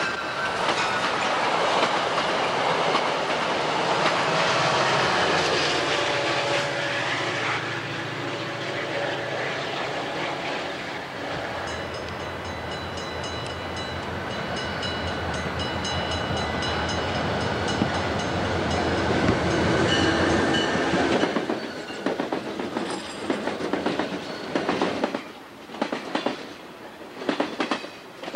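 Freight train running past close by: a loud, steady rumble of diesel locomotives and rolling wheels. About two-thirds of the way through it gives way to the rhythmic clickety-clack of the freight cars' wheels crossing rail joints as the cars roll by.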